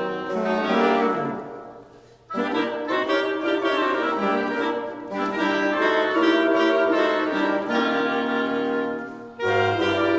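Woodwind quintet playing: flute, oboe, clarinet, French horn and bassoon in held, layered notes. The music dies away about two seconds in, and the players come back in together a moment later; there is a brief breath between phrases near the end.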